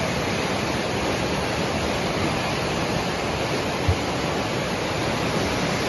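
Swollen muddy floodwater rushing past in a steady, continuous wash of noise. A brief low thump about four seconds in.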